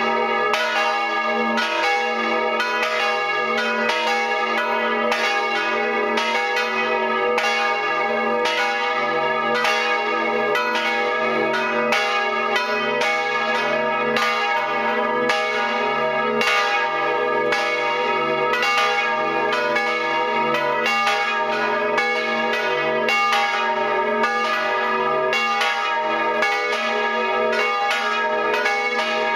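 Full peal of three swinging church bells tuned D-sharp, G-sharp and B, heard close up inside the belfry. The clappers strike a few times a second in a steady, overlapping stream, each stroke ringing on into the next.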